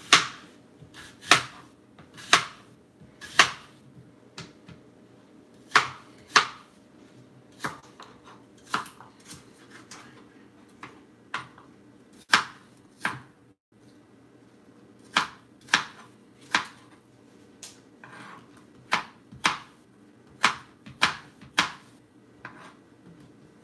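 Kitchen knife dicing an apple on a plastic cutting board: the blade knocks sharply against the board at an irregular pace, roughly once a second, some strokes in quick pairs.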